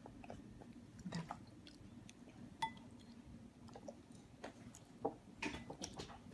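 Quiet eating sounds: a small child chewing, with a spoon clicking and scraping on a china plate. One sharp clink with a short ring comes about two and a half seconds in, and a quick run of clicks near the end.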